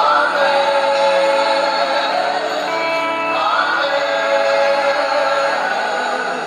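Gospel worship music with a choir singing long held notes.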